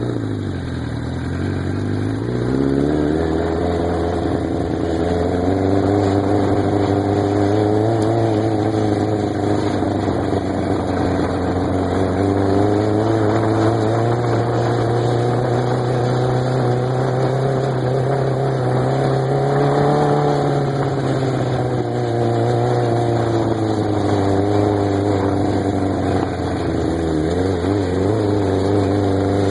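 Piranha buggy's engine running as it drives: the revs fall away at the start, pick up within a couple of seconds, then rise and fall with the throttle, dipping and climbing again near the end.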